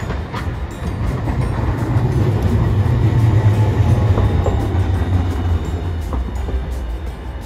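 Green Mover LEX low-floor articulated tram passing close by on street track: a low rumble of wheels on rails that swells to a peak about halfway through and then fades as it moves away.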